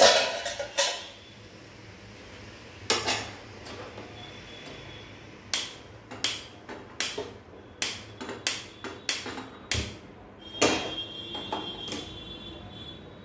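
A series of sharp metal clanks and knocks from an aluminium wok and cooking utensils being handled on a gas stove. The loudest comes at the very start, another about three seconds in, then about a dozen quicker knocks, roughly two a second.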